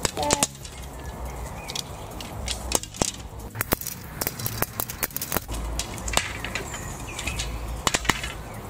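Long wooden giant Mikado sticks clicking and knocking against one another as they are handled, an irregular string of sharp clicks.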